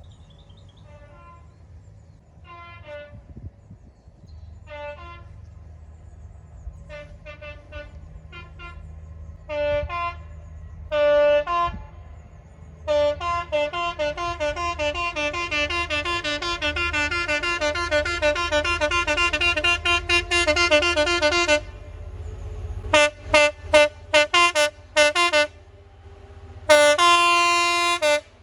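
Train two-tone horn blown in short alternating high and low notes. Spaced toots give way about halfway through to a rapid unbroken run of alternating notes lasting several seconds, then a few sharp short blasts and a long loud blast near the end, over a low steady rumble.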